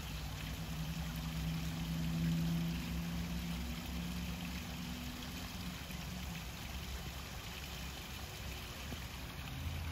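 Garden pond waterfall splashing steadily over rocks. A low steady hum sounds under it for the first few seconds, then fades.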